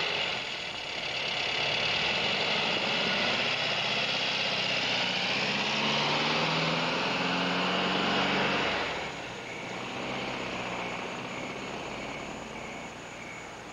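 Car engine running as the car pulls away, its pitch shifting, for about nine seconds before it cuts off. Crickets then chirp in a steady, even pulse.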